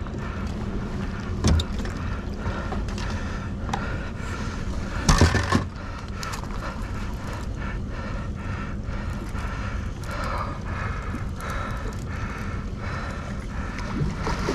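Boat motor running steadily under wind and water noise, with a small knock about a second and a half in and a short, louder burst of noise about five seconds in.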